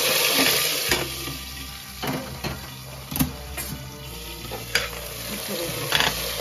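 Hot tadka of garlic and whole red chillies poured into a pressure cooker of sarson ka saag, sizzling loudest in the first second and then dying down. A few metal clinks follow from the aluminium cooker and its lid, and near the end a spoon stirs the saag.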